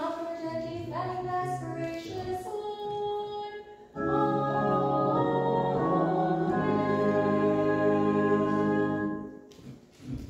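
Hymn singing: a sung melody line, then a loud final chord held for about five seconds before it stops.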